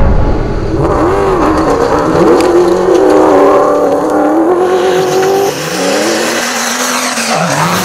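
Rally car engine revving hard as it launches, starting with a sudden loud onset. The engine note rises and falls, and a lower engine tone climbs near the end.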